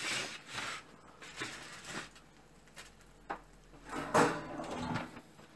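A foil-lined baking tray handled with oven mitts and set down on a glass-ceramic cooktop: short bursts of foil rustling and scraping, a sharp click just past three seconds, and the loudest scrape about four seconds in.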